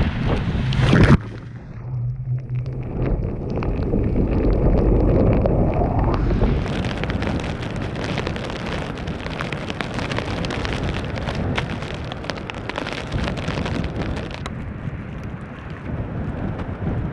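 Winter storm noise in several cut pieces: surf churning against a seawall cuts off suddenly about a second in; a swelling rush rises in pitch until about six seconds in; then blizzard wind gusts across the microphone with constant crackling, easing near the end.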